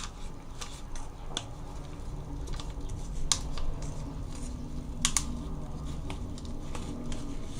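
Dish-soap and flour slime mixture being stirred in a container, a low scraping rumble with scattered sharp clicks of the stirrer against the container, including a quick double click about five seconds in.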